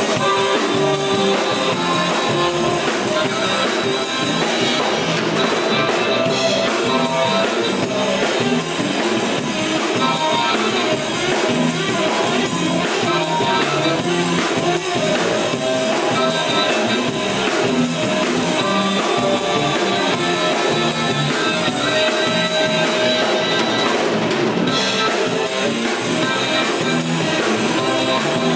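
Live electric blues band playing: electric guitars and drum kit, with a harmonica cupped against a vocal microphone carrying the lead.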